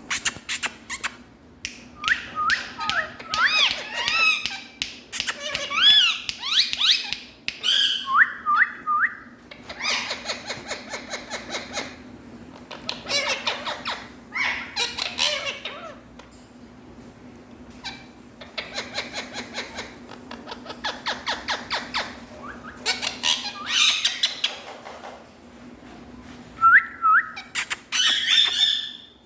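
Indian ringneck parrot calling: runs of short rising whistled chirps mixed with longer harsh, raspy squawks, over a faint steady low hum.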